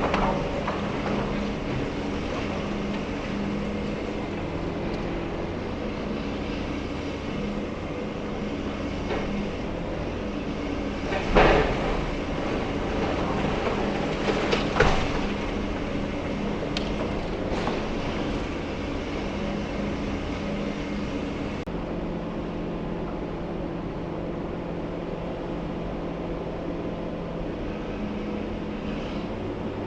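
Steady diesel engine hum from a high-reach demolition excavator working, with two loud crashes about eleven and fifteen seconds in and a few faint clicks after them.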